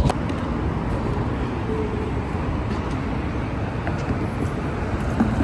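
Steady road-traffic noise, a low even rumble of passing and idling vehicles.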